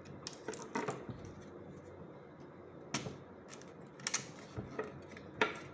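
Scattered small clicks and taps, the loudest near the end, as the antenna cables are pressed onto the Wi-Fi card in the opened laptop.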